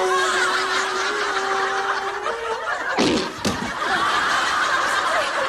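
A long, steady, buzzing fart noise that rises a little in pitch before it stops about two and a half seconds in, with the studio audience laughing throughout. There is a sharp knock about three seconds in.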